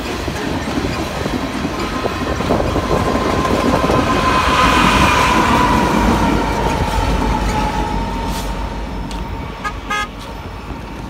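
BNSF rear distributed-power diesel locomotives (an ES44AC and an SD70ACe) rumbling past at the tail of a coal train, loudest about halfway through and then fading as they move away. A steady tone slides down in pitch as they go by, and a short toot sounds near the end.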